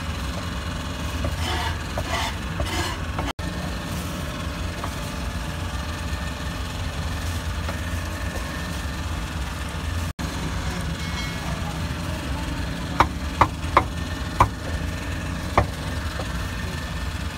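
A steady low engine hum, like a motorbike idling. In the second half, five sharp knocks of a cleaver chopping meat on a wooden block, spaced irregularly over about three seconds.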